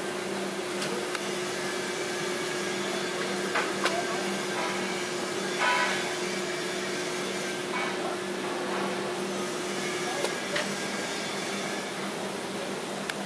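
TIG welding arc running steadily during a root pass on an alloy-steel pipe joint: an even hiss with a low steady hum underneath and a few faint clicks.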